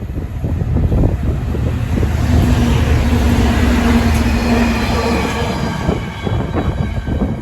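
Diesel locomotive hauling the nuclear flask train passing, a heavy low rumble with a steady engine note that swells to its loudest in the middle and then eases off.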